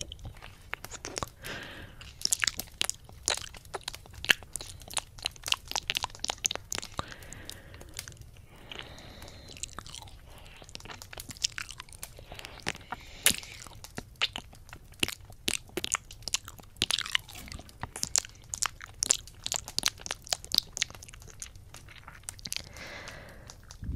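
ASMR ear-eating mouth sounds pressed right against the silicone ear of a 3Dio binaural microphone: a dense, irregular run of sharp, wet clicks and crackles that come in clusters.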